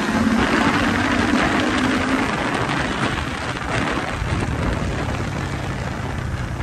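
Motorcycle engine running while riding, with wind rushing over the camera microphone. The engine note holds steady for the first couple of seconds, then settles lower.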